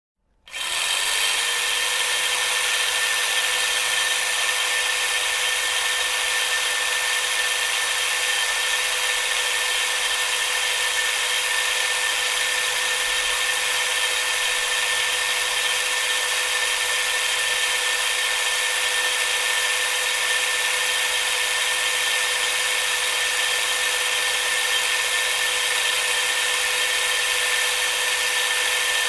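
Electric drill switched on: the motor spins up within about half a second, then runs steadily at full speed with a constant whine over a hiss.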